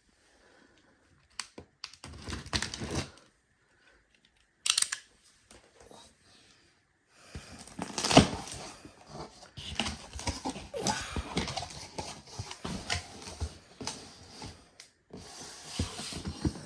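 Cardboard and plastic packaging being handled and opened: scattered clicks and taps at first, then from about seven seconds in continuous rustling, scraping and tapping of the box, with a sharp knock near eight seconds.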